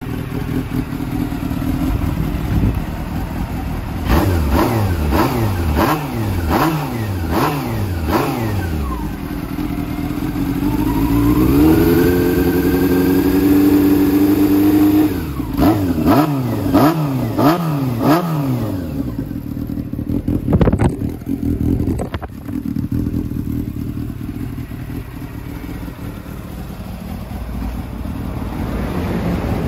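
Honda CB400Four inline-four running through a 4-into-2-into-1 full exhaust. It idles, then takes a run of about eight quick throttle blips, climbs to a higher rev held for a few seconds, drops back, blips about five more times, and settles to a steady idle, with two clicks near the end.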